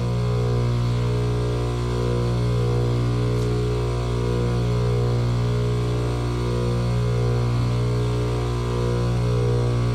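Trane outdoor condenser unit running: a steady low electrical hum from the compressor and fan motor, with a slow waver about every two seconds.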